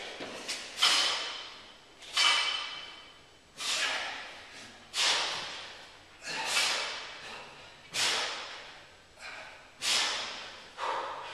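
Men exercising with hard, forceful exhales, one for each rep of bench dips and bent-over tricep kickbacks, about one every second and a half, a few of them with a grunt in them.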